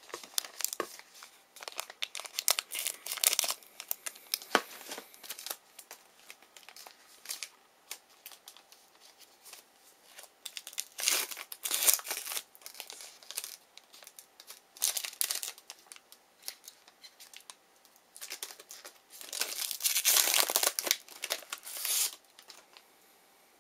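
A trading-card pack wrapper being torn open and crinkled in the hands, in irregular bouts of crackling, the longest and loudest near the end.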